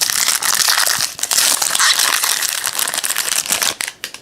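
Crinkling of a foil baseball-card pack wrapper as it is opened, a dense rustle that dies away near the end.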